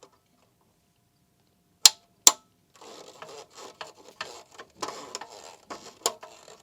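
Two sharp metallic clicks about two seconds in, then a run of irregular clicking and scraping: hand work on the engine's coolant pipe fittings.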